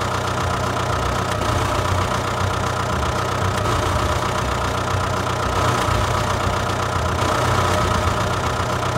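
Steady motor drone of a ride-on toy tractor towing a second ride-on toy tractor on a strap over a dirt track.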